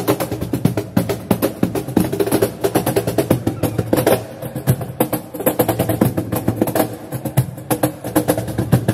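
Live flamenco percussion: cajón and body percussion struck in a fast, dense rhythm.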